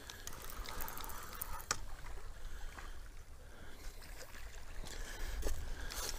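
Spinning reel being cranked to bring in a hooked catfish, with a few faint clicks, over wind rumbling on the microphone and water lapping at the bank.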